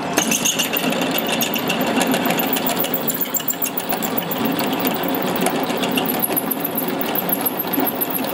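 Drill press boring into a steel pommel blank held in a machine vise. The motor runs steadily while the twist drill cuts, with a dense, rapid crackle from the cutting.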